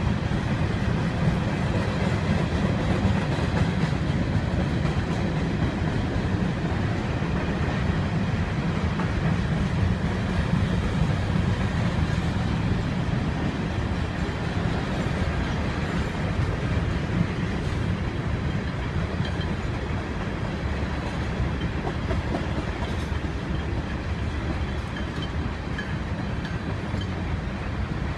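Mixed freight train's cars rolling steadily past on the rails: a continuous low rolling noise of steel wheels on track, easing off slightly near the end.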